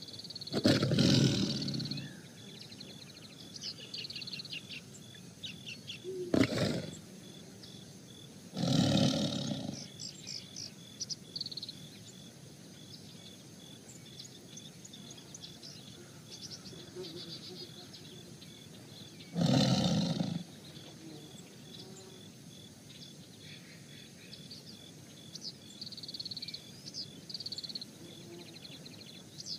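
Tiger roaring four times, seconds apart, over a background of birds chirping and a steady, evenly pulsing insect trill.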